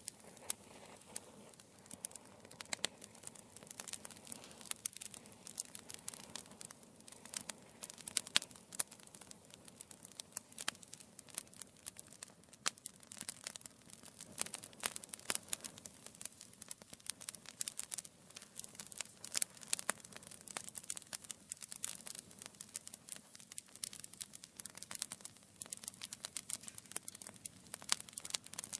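Wood fire crackling in a fireplace, with dense irregular pops and snaps over a soft steady hiss of flames.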